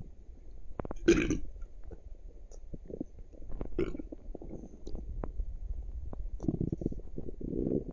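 A person's stomach gurgling and rumbling. A loud burp comes about a second in and a smaller one near four seconds, between low bubbling gurgles and small clicks.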